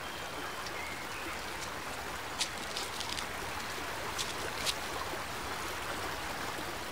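Shallow woodland stream flowing steadily over stones, with a few light ticks near the middle.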